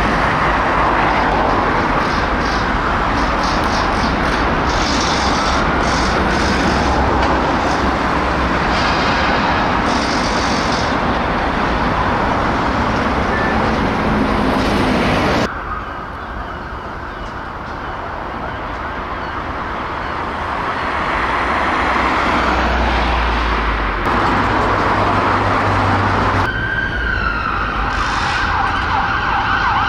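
Emergency vehicle sirens wailing in slow rising and falling sweeps over road traffic, changing abruptly about halfway through, and switching to a fast yelp near the end.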